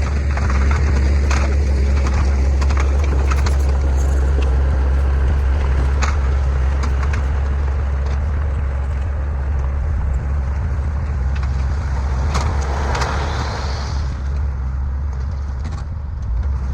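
Heavy earthmoving machinery's diesel engine running with a steady low drone, with scattered clicks and clanks and a brief rise in noise about twelve seconds in.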